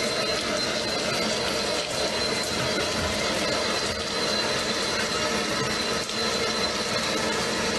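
Steady rush of water running from a bathroom tap into the sink, with a faint high whine over it.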